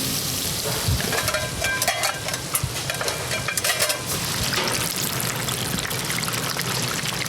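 Busy commercial kitchen: a steady hiss of cooking, with metal pans and utensils clattering and clinking from about a second in to about four seconds.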